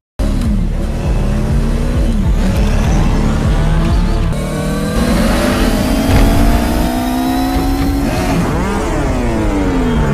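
Sci-fi lightcycle engine sound effects: several electronic engine whines gliding up and down in pitch over a deep low rumble, starting suddenly. About eight and a half seconds in, one swoops past, its pitch rising and then dropping.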